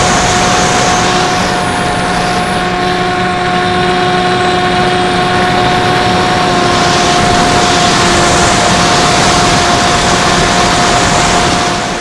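Electric motor and propeller of an FPV fixed-wing model plane, picked up by its onboard camera: a steady whine at constant throttle over loud wind rush. The rush thins for a few seconds during a steep bank and then comes back.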